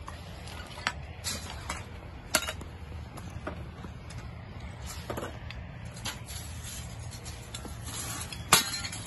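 Shards of hail-broken glasshouse glass clinking and crunching in sharp separate clicks, the loudest near the end, over a steady low rumble.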